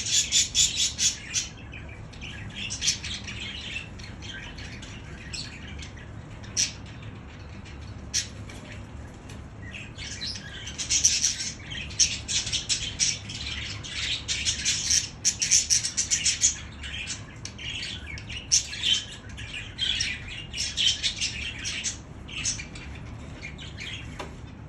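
Budgerigars chattering: fast runs of high chirps and squawky warbles in uneven bursts, busiest in the first second or so and again from about ten seconds in.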